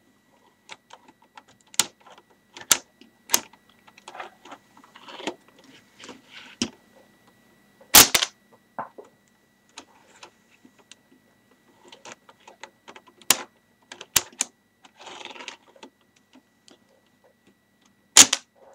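Lego Technic rifle mechanism worked by hand: plastic parts clicking and sliding, with sharp plastic snaps every few seconds, the loudest about eight seconds in and near the end.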